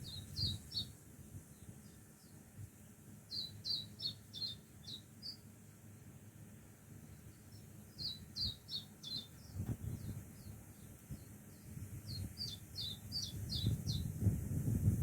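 A songbird singing a quick phrase of short, high chirps, repeated four times a few seconds apart. Low rustling and handling noise from tomato plants being picked through rises about two-thirds of the way in and again near the end.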